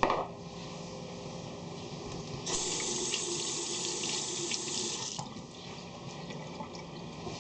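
Kitchen sink tap running for about three seconds, turned on and shut off abruptly, with water splashing into the sink.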